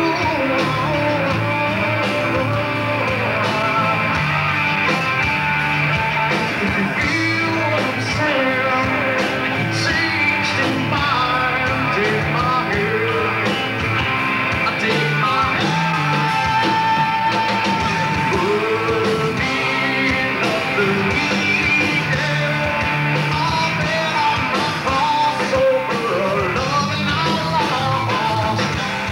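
Live rock band playing loudly: electric guitar, bass guitar and drums, with a singer's voice over them.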